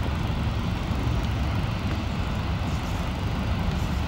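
Steady low outdoor rumble with a hiss over it, as picked up by a camcorder microphone.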